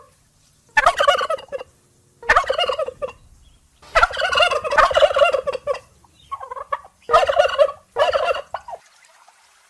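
Turkey gobbling: six quick wavering calls in a row, the fourth the longest.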